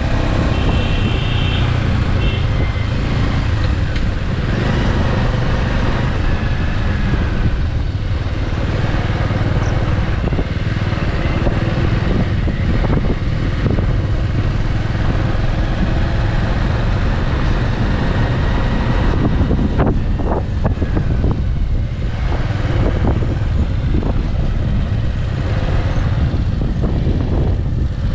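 Bajaj Avenger 160 Street's single-cylinder engine running while riding, mixed with steady wind rush on the rider's microphone.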